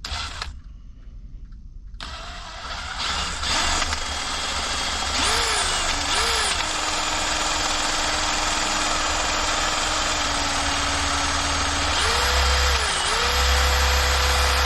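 Electric drill spinning the magnetic rotor of a homemade generator made from a salvaged motor's stator coil, as a test run. The motor whine speeds up and drops back twice as the trigger is squeezed and eased, then holds steady, and steps up to a higher pitch near the end.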